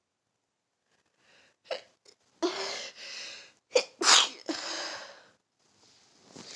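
A person sneezing twice in a row as part of a sneezing fit. Each sneeze is loud and starts with a quick, sharp catching breath.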